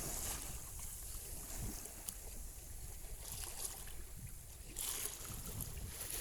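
Wind buffeting the microphone on a sailboat under sail: a low rumble with a steady hiss of wind and water. The hiss grows louder about five seconds in.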